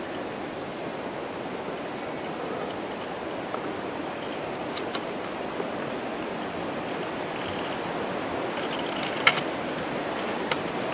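Steady rushing outdoor background noise with a few faint clicks, and one sharper snap about nine seconds in.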